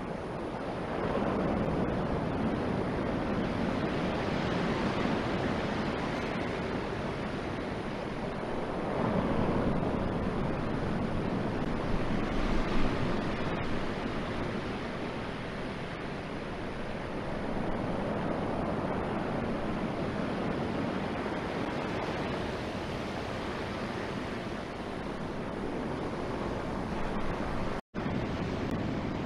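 Ocean surf breaking on the shore with some wind: a steady rushing noise that swells and fades every several seconds as waves come in. Near the end the sound drops out for an instant.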